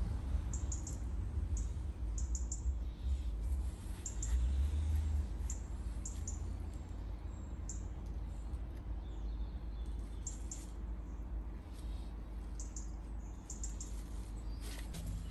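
Small birds chirping repeatedly in short high calls, over a low background rumble that is strongest in the first few seconds.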